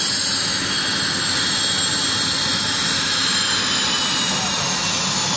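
F/A-18 Hornet's twin jet engines running at taxi power: a steady rush of noise with a high-pitched whine over it, growing slightly as the jet comes closer.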